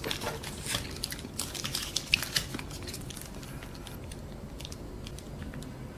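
Close-miked chewing of fried chicken nuggets: a quick run of small crunches and mouth clicks in the first couple of seconds, then fading to faint occasional ticks.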